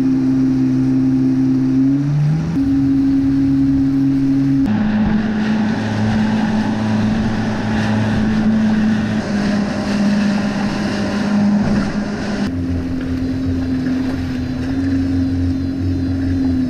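A small motorboat's engine running under way, a steady drone mixed with wind and rushing water. Its pitch steps up about two seconds in, and the sound shifts abruptly twice, about five and twelve seconds in.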